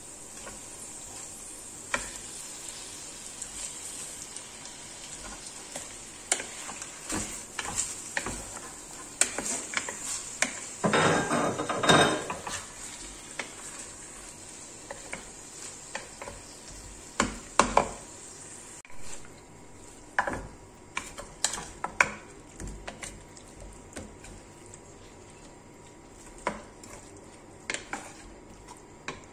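Chopped vegetables frying in oil in a terracotta pot, a steady sizzle, with a wooden spoon scraping and knocking against the pot. About eleven seconds in comes a louder, denser burst as raw chicken pieces go into the hot pot, followed by more stirring and sizzling.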